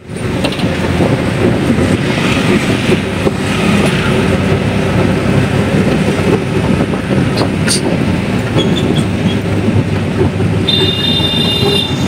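A moving auto-rickshaw heard from inside its open cabin: the small engine runs with a steady rattling clatter and road noise. About a second and a half before the end, a high-pitched horn sounds for about a second.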